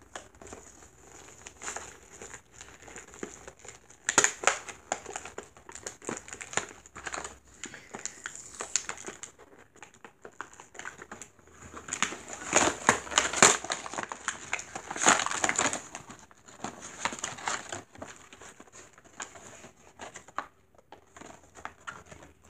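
Plastic toy packaging crinkling and crackling as it is handled and opened, in irregular bouts, busiest about four seconds in and again from about twelve to sixteen seconds.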